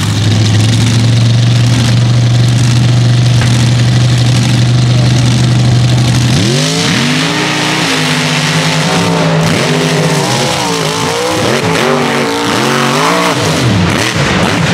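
Mega truck engines at full throttle. A steady held high engine note for about six seconds gives way to repeated rising and falling revs as the throttle is worked.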